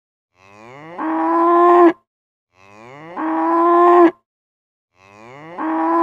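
Cow mooing three times, the same call repeated about every two and a half seconds. Each moo starts quiet and rising in pitch, then swells into a loud held note that cuts off sharply.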